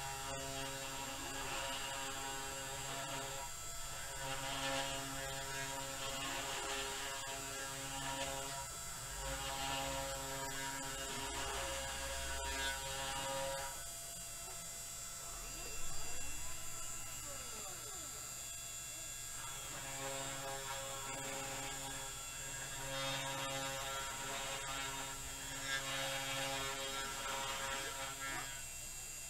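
3018 mini CNC router running an engraving job: a steady spindle hum, with motor whines that start and stop in stretches of a few seconds as the axes move. Near the middle there is a stretch of gliding tones that rise and fall.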